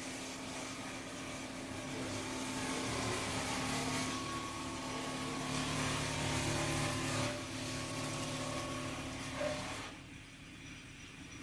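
Steady engine-like hum of a running motor, with a few steady tones in it. It drops away suddenly about ten seconds in.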